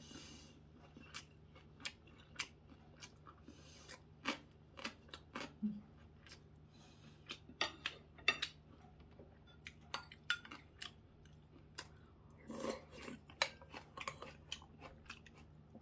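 A person eating with metal chopsticks: quiet chewing and scattered sharp clicks of the chopsticks against plates and bowls, a few louder about halfway and near the end.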